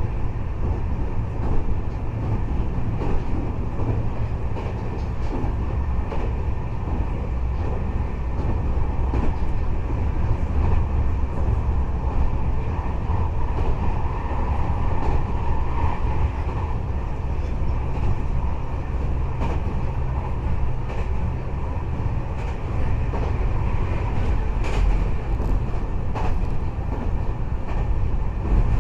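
Nagoya Municipal Subway N3000-series aluminium-bodied car running between stations, heard inside the car: a steady low rumble of the train under way over a steady hum from the car's ceiling ventilation fan. A few light clicks come near the end.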